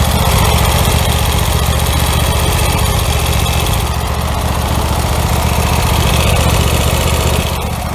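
Twin-cylinder Kohler engine of a riding lawn mower running steadily, its valve covers freshly resealed with RTV silicone to stop oil leaks.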